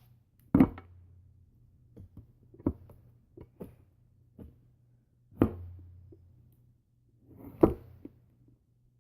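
Slime being handled and poked by hand: four louder dull thuds roughly two seconds apart, with smaller sticky clicks between them, over a faint low steady hum.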